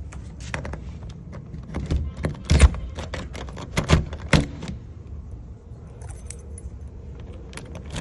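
Keys jangling with metal clicks and knocks as a freshly rekeyed door lock is put back together on the door, with a few louder knocks in the middle.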